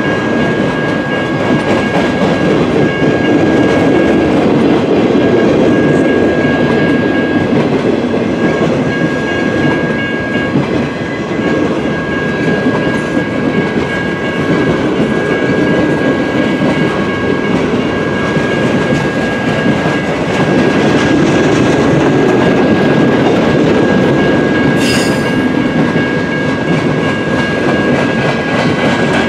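Freight train of flatcars loaded with military vehicles rolling past: a steady rumble and clickety-clack of wheels over the rails, with a thin steady high tone running through it and one sharp clank near the end.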